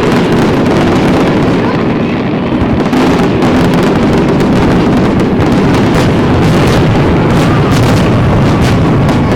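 Fireworks display in a dense barrage of many overlapping bangs and bursts, easing slightly about two seconds in, then packing closer together again.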